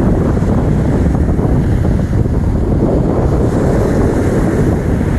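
Wind buffeting the microphone with a steady low rumble, over the wash of small waves breaking on the shore.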